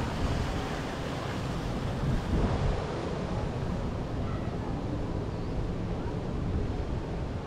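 Wind noise on the microphone over the steady wash of ocean surf.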